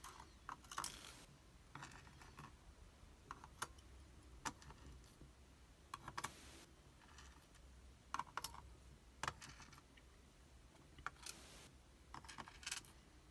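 Faint, irregular small metallic clicks and taps as the springs are taken out of a disassembled pin tumbler lock, with a few brief scraping rustles.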